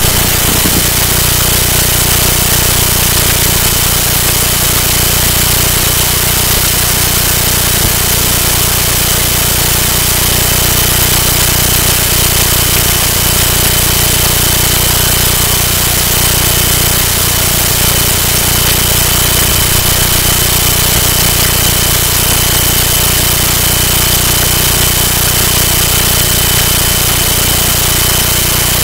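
Loud, unchanging electrical buzz and hiss: a steady low hum with a thin high whine over it and no voice coming through, the sign of a recording fault drowning out the audio.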